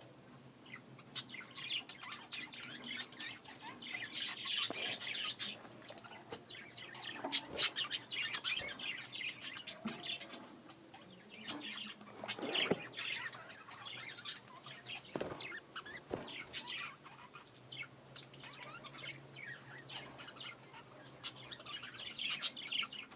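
Budgerigars chirping and warbling in quick, irregular bursts, with a few sharp clicks, the chattering song of budgies courting.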